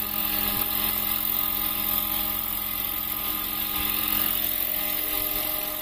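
Electric 800-size scale RC helicopter (Roban Airwolf) hovering just above the ground: a steady whine over the noise of the main and tail rotors.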